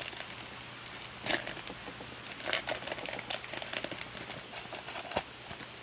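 Baseball trading cards being handled: short clicks and rustles as cards slide and are flipped against one another, over a low steady hum.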